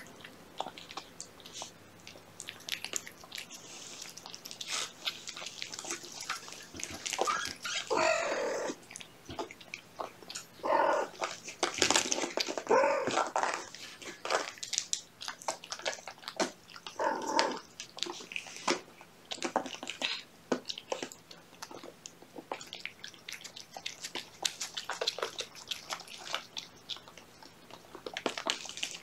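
A cat eating wet cat food off a paper plate: a steady run of small wet chewing and licking clicks. Several short, high mews from young kittens cut in, the loudest about halfway through.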